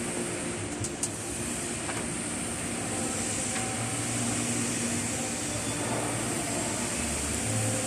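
Steady mechanical background hum and hiss, like ventilation fans running, with two faint clicks about a second in.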